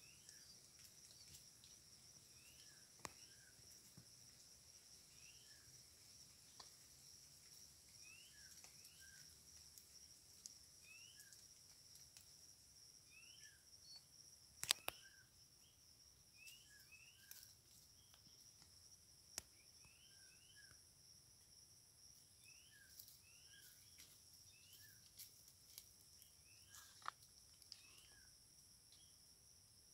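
Woodland ambience: a steady high drone of insects, with short rising chirps repeating every second or two. A few sharp snaps or clicks cut in, the loudest about halfway through.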